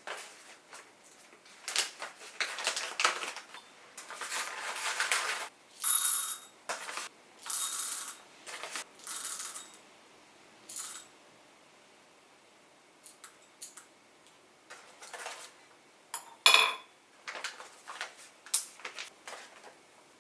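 Dishes and utensils being handled: a series of light taps, clinks and short rustles. There is a ringing clink about six seconds in, a pause of a few seconds, and a sharper, louder clink later on.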